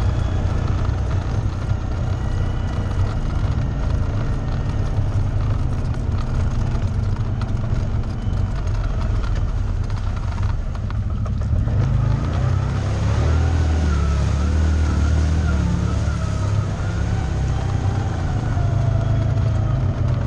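ATV engine running under way, its note rising and falling with the throttle and pulling harder about two-thirds of the way through.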